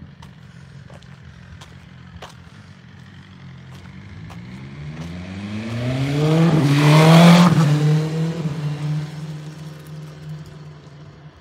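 BMW S1000RR inline-four sport bike accelerating toward and past, its engine pitch climbing as it approaches. It is loudest about seven seconds in, then drops in pitch as it goes by and fades.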